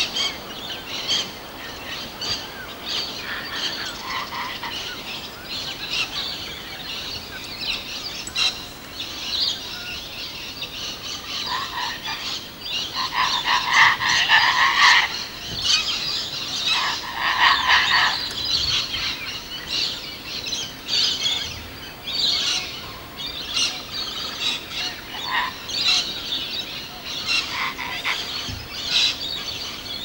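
A chorus of frogs and birds calling continuously, with louder calls about halfway through.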